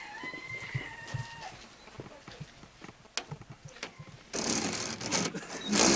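The tail of a rooster's crow, a held call that wavers and drops away, over the first second and a half, followed by scattered light knocks. From about four seconds in, a loud rough rasping noise takes over and grows louder.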